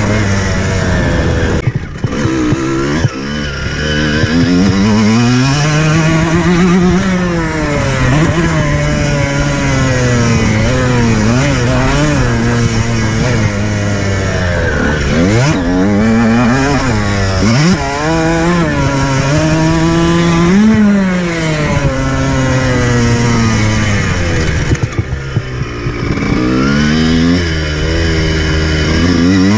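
Dirt bike engine revving up and down through the gears, pitch climbing and falling as the rider works the throttle, with the throttle chopped briefly about two seconds in and again near the end.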